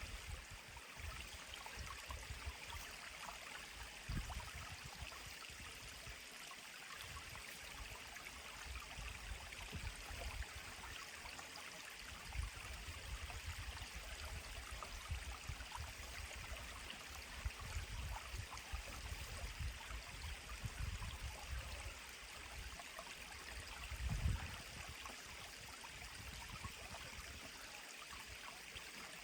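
Mountain stream flowing steadily, an even rushing of water, with occasional low rumbles underneath, the strongest about 24 seconds in.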